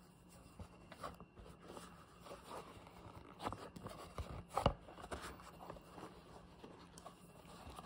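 Hands working a stiff, dried wet-molded leather pad into the cutout of a tooled leather cheek rest on a granite countertop: quiet rubbing and scuffing of leather with scattered small taps, the loudest a little past halfway.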